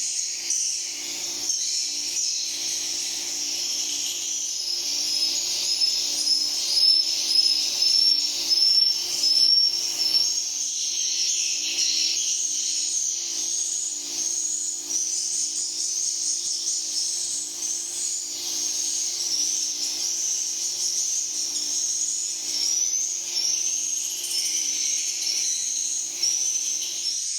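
Edible-nest swiftlets twittering: many short, high chirps overlapping continuously, many rising in pitch, over a faint steady low hum.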